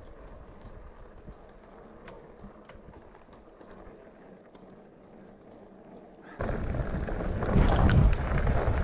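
Mountain bike riding on a gravel track. It is quiet at first with faint scattered ticks, then a little over six seconds in there is a sudden jump to loud tyre rumble on gravel and wind buffeting the microphone.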